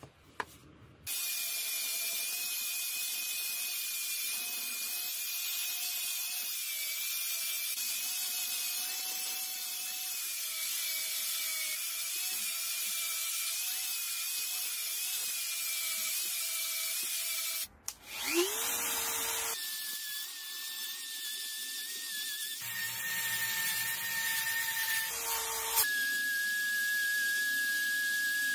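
Handheld electric power tool running at steady speed with an abrasive brush scouring aluminium angle-grinder housing parts: a steady motor whine over a hiss of abrasion. About two-thirds through it stops briefly and spins up again with a rising whine, and the pitch then jumps a few times.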